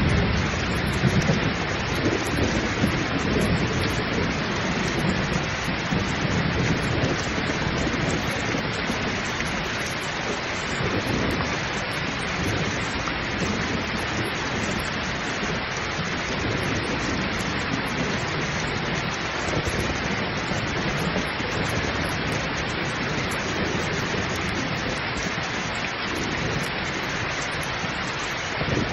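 Heavy, steady downpour of rain, with low rumbles of thunder that are strongest at the start and then come and go more faintly.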